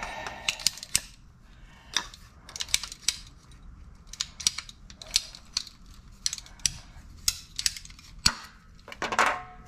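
Ratcheting plastic pipe cutter clicking as its blade is worked through CPVC water pipe: a string of sharp clicks, about two a second and unevenly spaced. A louder rushing noise near the end.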